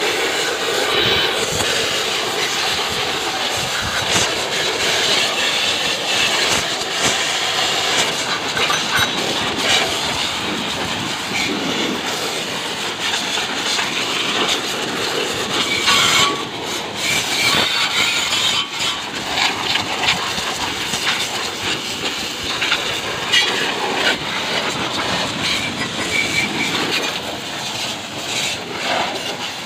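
High-pressure water jet from an HTP pump washer's spray lance, hissing and splattering against a motorcycle's wheel, exhaust and engine. It runs loud and steady with uneven churning, and drops briefly about halfway through.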